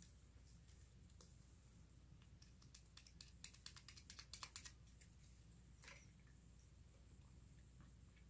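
Faint, quick clicks and crackles of close-miked chewing, a run of about a dozen in the middle at roughly five a second, then one more a little later, over a low hum.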